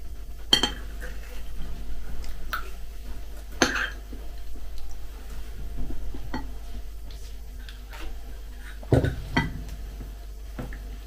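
A metal spoon clinking against a bowl of cereal flakes in kefir several times, the sharpest clinks about half a second in, near the middle and near the end, with quiet chewing and spoon scraping between them.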